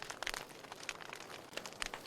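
Wood fire crackling in a fireplace: irregular sharp pops and snaps over a soft steady hiss, with a quick cluster of pops near the start.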